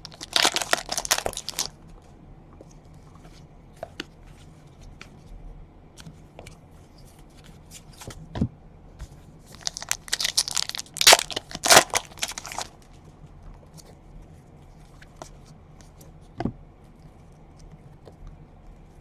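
Trading-card pack wrappers being torn open and crinkled, in two bouts: one right at the start and a louder one near the middle, with light clicks of cards being handled between them.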